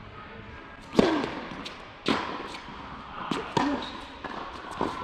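Tennis ball struck by rackets in a serve and rally on an indoor hard court: the loudest hit, the serve, comes about a second in, then sharp hits and bounces follow every second or so. Each strike echoes briefly in the large hall.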